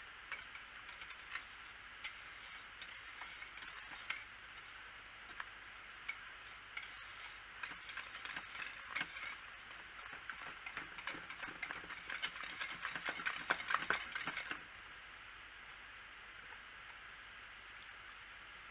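Wire whisk stirring thick hot-process soap paste in a ceramic slow cooker crock, with rapid scraping and clicking against the crock. The strokes get faster and louder about halfway through, then stop suddenly.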